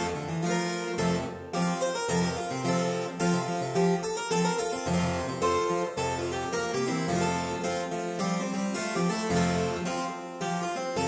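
MIDI harpsichord playing a Baroque-style prelude in quick running notes, two contrapuntal parts sounding at once.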